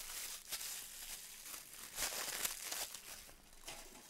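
Clear plastic packaging bag crinkling and rustling as it is handled, with irregular crackles.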